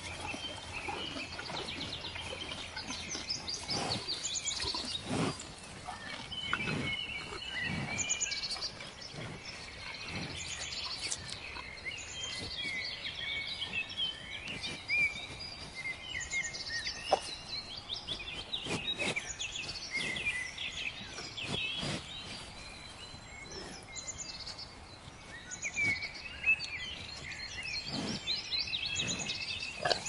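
Cattle grazing, tearing off grass in irregular bites and chewing. Birds chirp and sing throughout.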